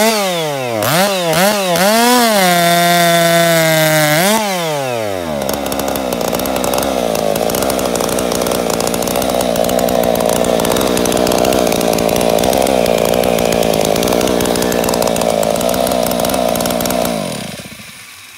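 Modified Stihl MS661 two-stroke chainsaw (modified cylinder and muffler) blipped up and down a few times, held briefly at full throttle, then cutting through a 10-inch poplar cant under steady load with a square-ground Oregon 72CL chain for about twelve seconds. The engine note drops away near the end.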